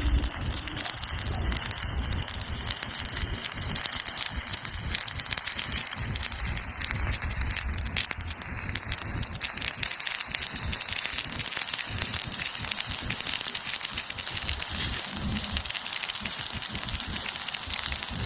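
Stick-welding arc burning on a 6013 electrode, crackling steadily with a dense run of fine pops.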